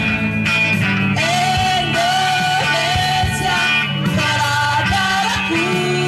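Women's vocal group singing through microphones over amplified backing music, holding long, wavering notes.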